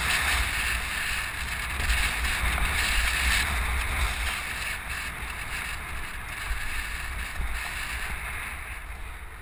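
Wind rushing over the microphone of a moving camera: a steady low rumble with a hiss above it, easing off toward the end.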